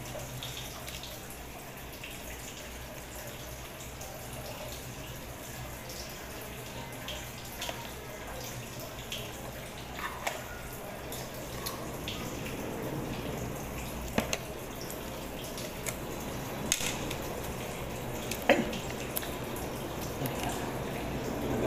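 Scattered sharp clicks and taps of a spoon and plastic jar being handled at a table, a few seconds apart and louder in the second half, over a steady low hum.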